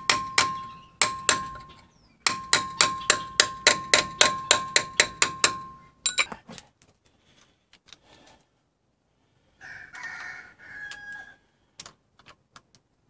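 Hammer striking a blunt steel chisel to knock up the locking tab washer on a Land Rover Defender's front stub axle nut. There are sharp, ringing metal-on-metal blows: a few spaced strikes, then a fast run of about four a second that stops about six seconds in. Faint clicks and a brief scrape of tools being handled follow.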